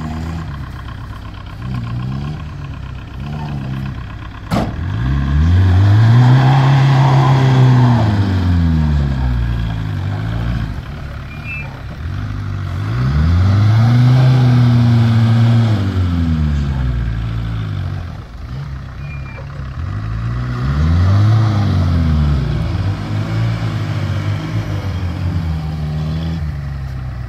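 Van engine revved hard three times, each rev climbing and then falling away over a few seconds, as the van strains to tow a stuck LuAZ out by rope. A single sharp knock comes about four and a half seconds in.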